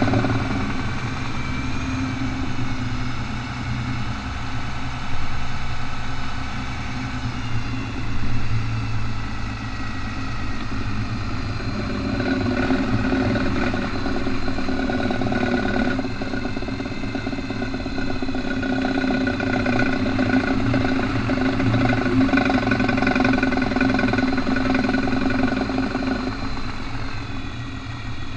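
A 4x4 vehicle running while turning in four-wheel drive, with an engine hum and a fast ratcheting noise from the driveline that gets busier about halfway through.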